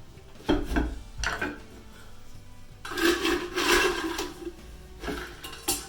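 Bar tools and kitchen items being handled: a few knocks in the first second or so, a longer scraping rub about three seconds in, and two sharp clicks near the end.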